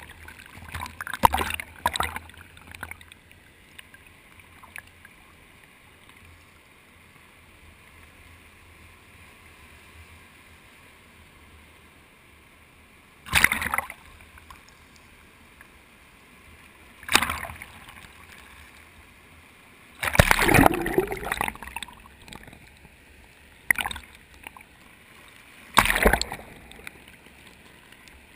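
Sea water washing and splashing over a GoPro in its waterproof housing at the waterline: several sudden muffled splashes, the longest about two-thirds of the way in, over a faint steady wash of the sea.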